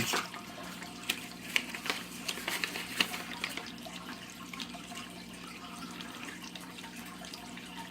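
Steady splashing and trickling of aquarium water with a low hum. Sharp crinkles and clicks in the first few seconds come from paper packaging being handled.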